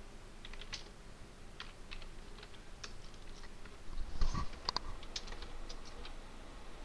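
Computer keyboard keys clicking in short irregular runs as a command is typed. There is one louder thump about four seconds in.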